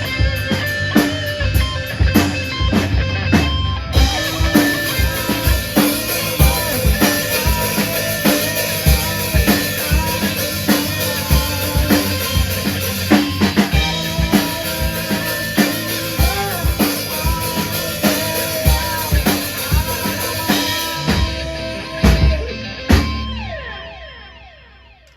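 Live rock band, drum kit with electric guitar and bass, playing an instrumental ending with steady drum hits. It stops on two last accented hits about three seconds from the end, and the chord rings out and fades.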